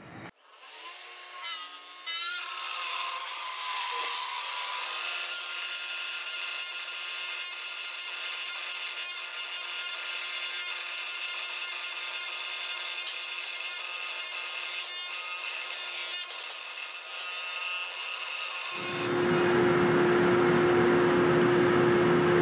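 Router spindle motor on a gantry woodworking machine spins up, rising in pitch, then bores a wire tunnel through a wooden speaker tube with a steady high-pitched whine and cutting noise. Near the end the cutting stops and a louder, lower steady hum takes over.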